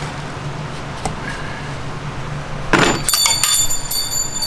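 A metal tool or part striking and clattering in the engine bay, with a short scraping rush followed by about two seconds of bright, ringing metallic clinks.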